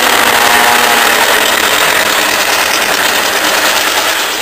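An 800cc four-stroke MotoGP racing motorcycle passes down the front straight. Its engine note bends in pitch and fades in the first second or so, leaving a steady loud rushing noise.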